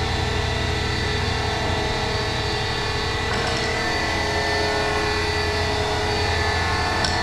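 A workshop machine running with a steady hum and a whine of several constant tones; a light knock near the end.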